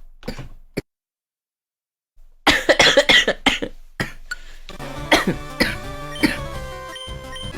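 A young woman coughing in a quick fit of several loud coughs, starting about two and a half seconds in after a moment of dead silence. Background music with a steady beat comes in about halfway through.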